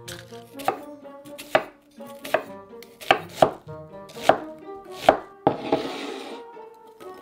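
Chef's knife chopping a peeled onion on a wooden cutting board: about seven sharp knocks of the blade on the board, roughly one a second.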